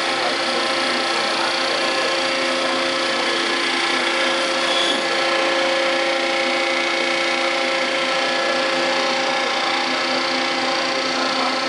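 1994 Mazak Quick Turn 15N two-axis CNC lathe running under power: a steady mechanical whine made of several held tones over a hiss.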